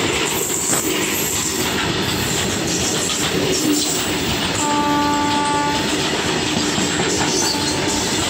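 Open box wagons of a freight train rolling past close by, wheels rumbling and clattering on the rails. About halfway through, a steady pitched tone sounds for just over a second.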